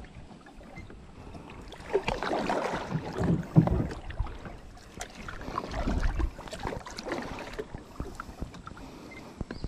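Kayak paddle strokes in calm lake water: a few irregular splashing swishes as the blades dip and pull, the loudest about three and a half seconds in.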